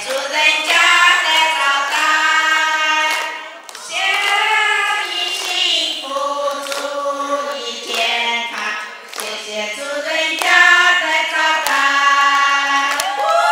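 A group of women singing together, one voice through a microphone, with hand-clapping along.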